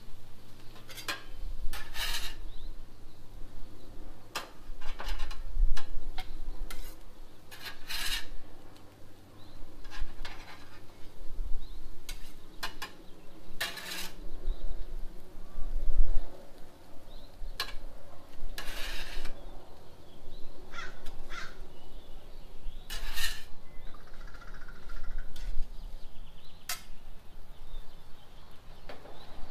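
Metal spatula scraping across the flat steel top of a Blackstone griddle and clinking against a metal tray while scooping up cooked ground-beef hash, in irregular strokes of a second or so.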